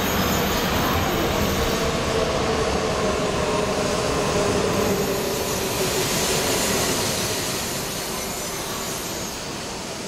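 E4 series double-decker Shinkansen pulling in along the platform and slowing: a steady rumble of wheels and running gear with a whine that falls slightly in pitch, easing off near the end as the train nears a stop.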